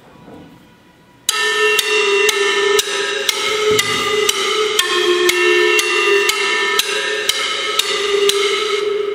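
Music with a steady percussive beat and sustained tones starts abruptly about a second in, played from a phone through a small 3D-printed Bluetooth speaker.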